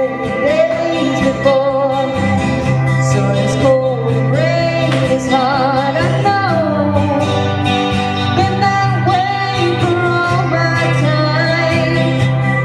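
Live country band playing an instrumental break: a lead line that slides and wavers in pitch over guitar and a steady bass.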